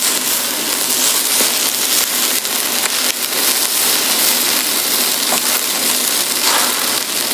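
Barbecue grill sizzle sound effect: a steady hiss full of small crackles, which cuts off suddenly at the very end.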